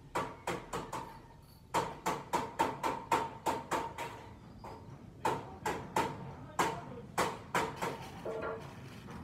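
A metal slotted spatula clacking and scraping against a non-stick frying pan as bananas are turned in hot oil. The sharp clacks come in three runs, about two or three a second, with a short ring to each. A steady sizzle of the frying oil runs underneath.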